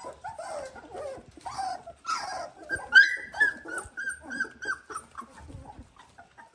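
Young Dalmatian puppies whimpering and squeaking as they start to play, with a quick string of short, high squeaks near the middle.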